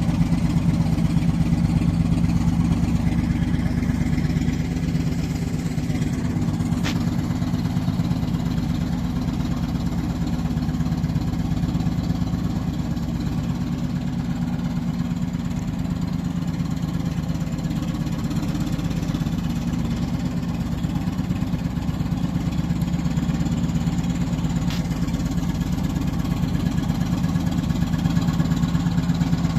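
Engine of heavy road-construction machinery running steadily, with a low hum and a fast, even pulse.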